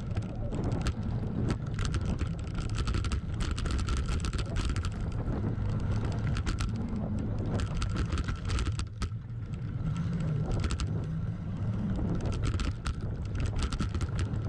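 Voodoo Bizango 2020 hardtail mountain bike running fast down a dirt trail: steady tyre rumble with frequent rattles and knocks as it goes over bumps, and wind buffeting the microphone.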